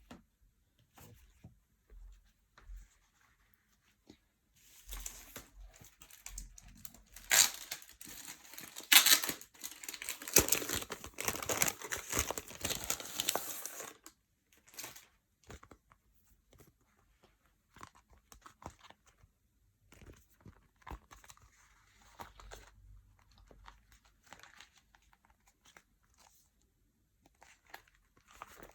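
Packaging being torn open and crinkled by hand. There is a loud stretch of tearing and rustling about five to fourteen seconds in, with sharp rips near the middle, and light handling rustles and clicks for the rest.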